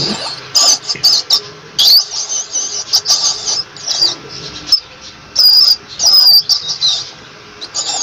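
Rat squeaking: a string of short, high-pitched squeaks, some sliding in pitch, with small clicks between them. The loudest squeaks come in a run a little past the middle.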